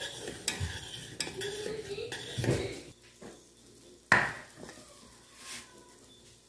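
A spoon stirring and scraping thickening chocolate sauce in a pan on the stove, with clinks of metal on the pan for the first two and a half seconds. Quieter after that, with one sharp clatter about four seconds in.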